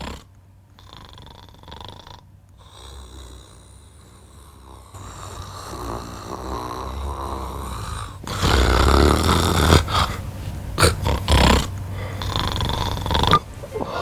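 A man snoring. The snores start faint and grow louder and rougher, peaking in the second half with a few short, very loud snores.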